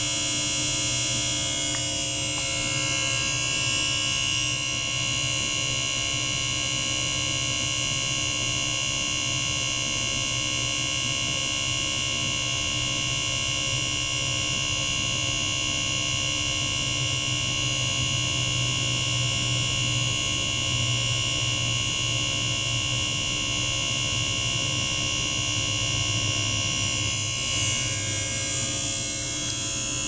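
Small electric circulation pump's motor running steadily: a continuous buzzing whine with a low hum beneath it, circulating water through the tubing.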